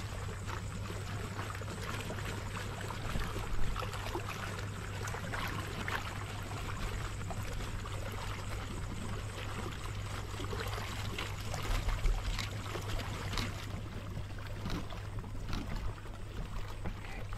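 Water gushing and splashing steadily from a hose outlet into the lake, with a steady low hum underneath. A couple of louder splashes come about three and a half seconds in and again about twelve seconds in, as a large carp is handled in the water.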